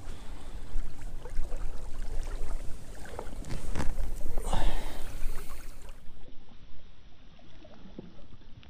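Wind buffeting the microphone in uneven gusts, with water lapping at the shore and a few light knocks and rustles of fishing tackle being handled.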